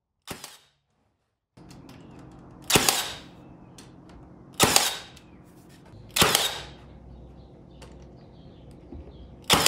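Battery-powered nail gun firing nails into wooden trim five times, a sharp crack each time, roughly two seconds apart. The first shot is fainter than the rest.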